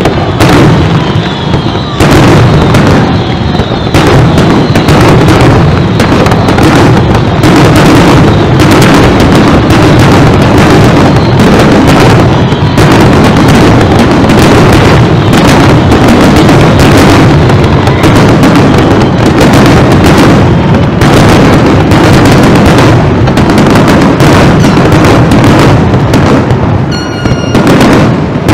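Aerial fireworks shells going off in a rapid, unbroken barrage of loud bangs, one burst after another.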